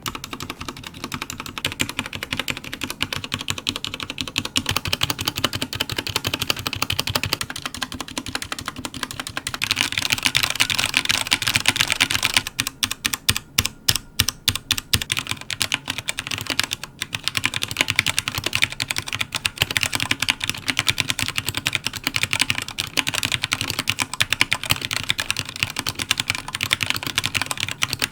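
Typing on a Royal Kludge RK84 mechanical keyboard with Cherry MX Black switches: a dense stream of keystrokes. The strokes come fastest about ten seconds in, turn into separate single keystrokes for a few seconds, then settle back into steady typing.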